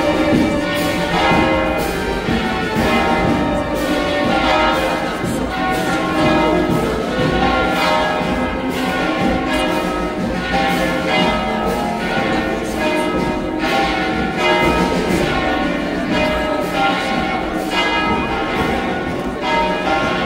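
Church bells pealing, struck again and again in quick, uneven succession so that their ringing tones overlap without a break.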